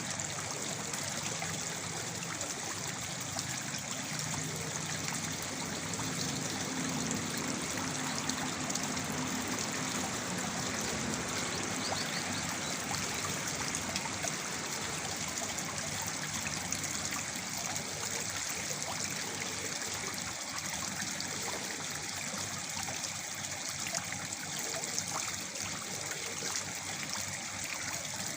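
Small waterfall splashing and trickling steadily, an even rush of falling water with no breaks.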